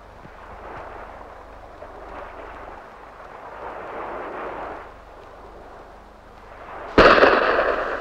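Faint soundtrack noise, then one sudden loud explosion near the end that dies away over about a second.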